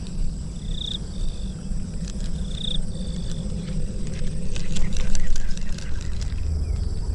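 Rural outdoor ambience: insects buzzing steadily, with four short high chirping calls in the first half, over a low rumble on the camera's microphone. Scattered light clicks come in the second half.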